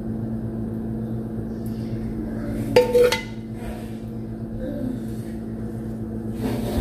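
A metal spoon knocking against a plate twice in quick succession about three seconds in, with a few fainter touches after, as sauce is spooned over the food. A steady low hum runs underneath.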